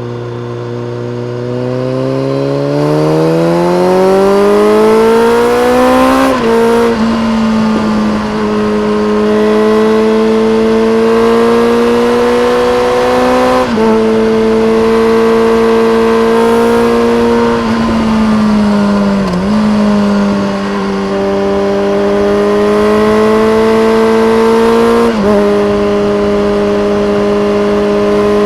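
BMW K1300R inline-four engine through a full Akrapovic race exhaust with a dB killer. It revs up for about the first six seconds with the pitch climbing steadily, then drops sharply at a gear change. After that it holds near steady, with a few short steps and dips in pitch as the rider changes throttle and gears.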